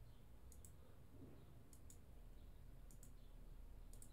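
Near silence: room tone with faint, sharp, high clicks coming in pairs about once a second.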